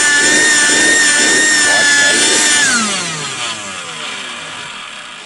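12-volt vacuum cleaner motor running at a steady high whine, then switched off a little before halfway, its pitch falling as it winds down.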